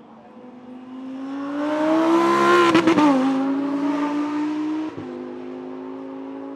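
Lamborghini Huracán EVO's 5.2-litre naturally aspirated V10 accelerating hard, its pitch climbing to a loud peak a little under three seconds in. There is a brief crackle and the note drops with an upshift. It climbs again, drops with a second shift around five seconds in, and runs on quieter.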